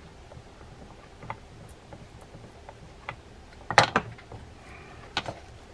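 Scattered small clicks and taps from a Penn Clash II 2000 spinning reel's parts being screwed together and handled, with a louder clatter of two or three knocks about four seconds in.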